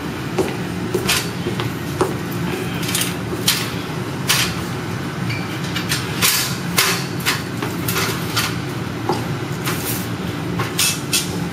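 Metal hand truck rattling and clattering as it is moved, with irregular clicks and knocks over a steady low hum.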